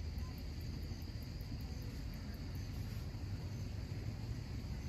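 Insects, crickets by the sound, chirping in a steady high drone over a constant low rumble.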